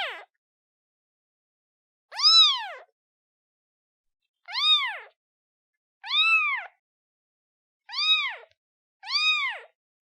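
Newborn kitten meowing for its mother: about five short, high meows, each rising then falling in pitch, spaced a second or two apart.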